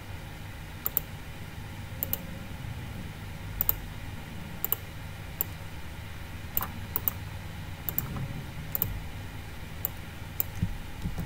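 Scattered, sharp clicks of a computer mouse and keyboard, about a dozen at irregular intervals, over a faint steady low hum.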